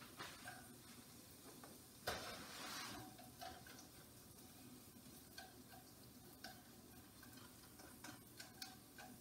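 Sliced carrots being sautéed in olive oil in a frying pan, stirred with a utensil: a short burst of stirring and sizzling about two seconds in, then scattered light clicks of the utensil against the pan.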